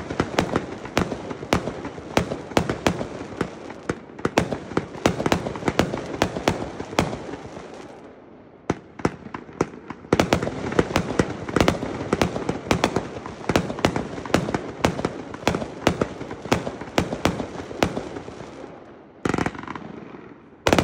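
A 42-shot, 500-gram consumer fireworks cake firing: a rapid string of launch thumps and aerial breaks, several a second. It thins out about eight seconds in, picks up again at ten seconds and tails off near the end.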